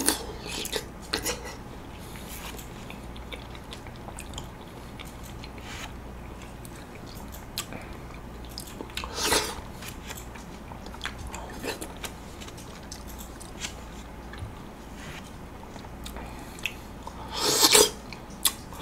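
Close-miked eating sounds: soft, wet chewing and mouth clicks from spoonfuls of golden kiwi flesh scooped out of the skin, with two louder, short noisy bursts, one about nine seconds in and one near the end.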